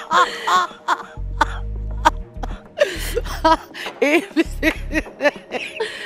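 A woman laughing theatrically in short peals and throaty sounds, over background music with a repeating bass line.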